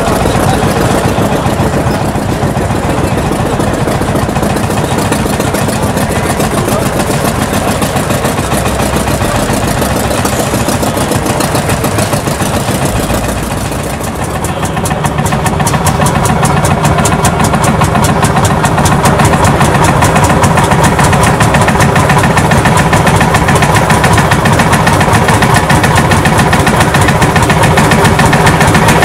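Vintage tractor engines idling with a steady, rapid beat of firing pulses, growing louder about halfway through.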